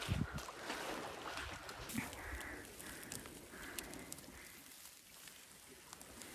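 A woman panting heavily, out of breath from jogging over rocks. Light crunching of dry grass can be heard with it, and the breathing grows quieter toward the end.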